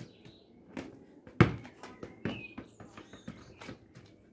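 Football being tapped and bounced off the feet and onto paving stones during freestyle tricks: a series of irregular thuds, the loudest about a second and a half in.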